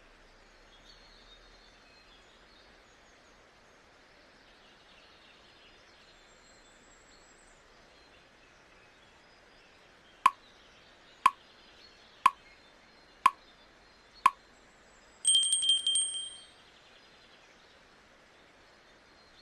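Study timer running out: five short sharp ticks exactly a second apart, then an alarm of rapid high-pitched beeps for just over a second. Faint nature ambience with bird chirps runs beneath.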